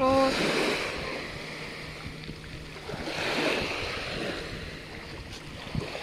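Small waves of a calm sea washing onto a pebble shore, a steady rush that swells once about three seconds in, with wind gusting on the microphone.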